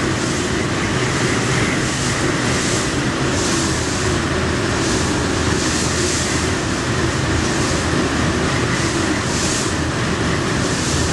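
Ferry's engines running with a steady low drone, under a continuous rush of water and wind noise that swells and fades every second or so.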